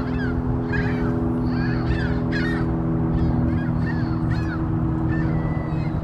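A flock of birds calling noisily, with many short overlapping calls several times a second, over a steady low hum.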